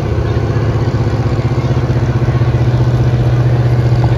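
A 1980s square-body pickup's engine running hard at a steady high pitch under heavy load as it drags a weight-transfer pulling sled, growing slightly louder as the pull goes on.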